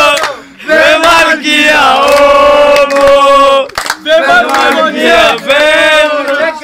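Voices chanting together in about four long, drawn-out phrases, with short breaks between them.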